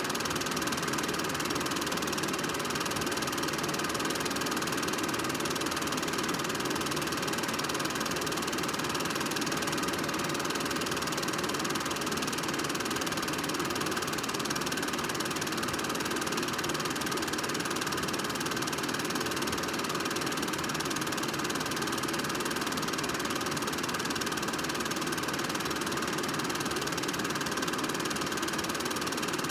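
Film projector running steadily, a constant mechanical whir and clatter from its motor and film transport.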